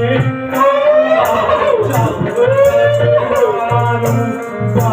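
Ramlila stage singing: a voice holding a long, wavering sung line of dialogue over a stage band, with a drum beating steadily and a regular jingling rhythm underneath.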